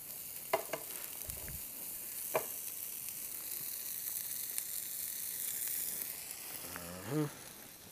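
Carrots, broccoli and celery sizzling in butter in a frying pan: a steady sizzle with a few light clicks, easing off near the end. A short vocal sound comes near the end.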